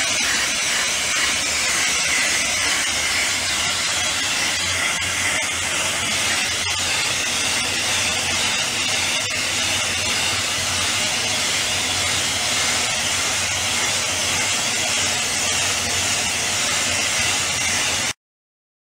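Slurry blasting nozzle jetting a water-and-abrasive mix onto a steel surface to strip rust: a loud, steady hiss that stops abruptly near the end.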